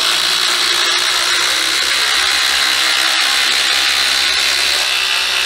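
Two DeWalt impact drivers, a DCF850 Atomic and a DCF887 XR, running together at full speed, hammering screws into wood in one loud, steady run.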